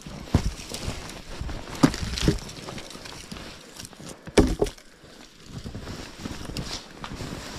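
A few irregular thumps and knocks over several seconds; no chainsaw is running.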